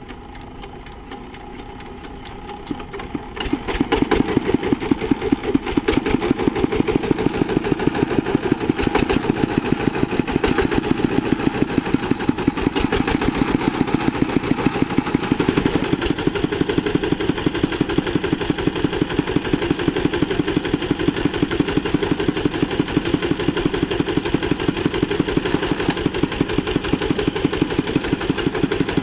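Single-cylinder diesel engine of a two-wheel hand tractor. It is fairly quiet for the first few seconds, then runs loudly from about three and a half seconds in with a fast, even chugging beat.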